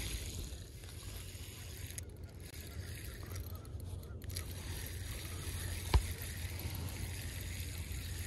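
Wind rumbling steadily on the microphone, with a single sharp click about six seconds in.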